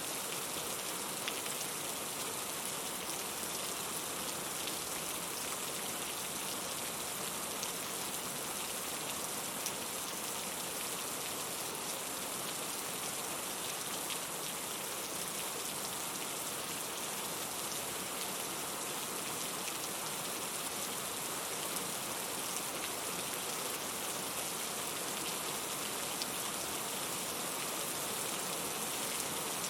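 Steady rain falling: an even hiss with scattered faint ticks of individual drops.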